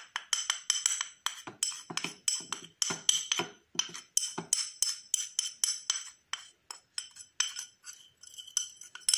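Metal teaspoon clinking and scraping against a small glass bowl while stirring dry powders together, about three ringing clinks a second.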